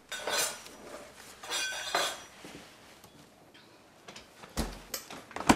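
Dishes and utensils clinking and clattering on a kitchen counter in a few short bursts, then a dull thump and a sharp click near the end.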